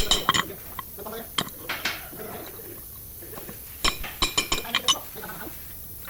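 Light metal-on-metal clinks and taps, steel tools or parts knocking together with a short ring, in two clusters: a few near the start and a quick run of them about four seconds in.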